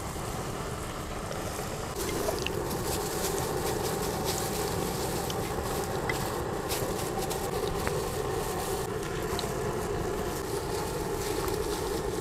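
Hot oil sizzling as breaded beef cutlets deep-fry, growing louder about two seconds in, with scattered small crackles and pops. A low rumble of wind on the microphone runs underneath.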